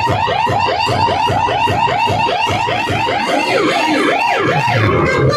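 Siren sound effect played at high volume through a large DJ loudspeaker system. It is a fast, repeating rising yelp of about six sweeps a second, which slows a little after halfway into a few longer up-and-down wails.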